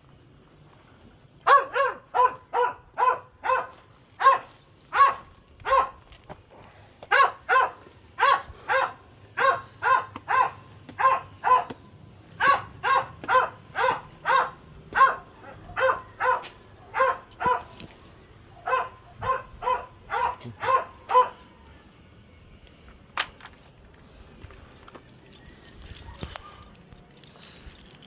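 A dog barking over and over, about two barks a second, in several runs with short pauses between them; the barking stops about three-quarters of the way through.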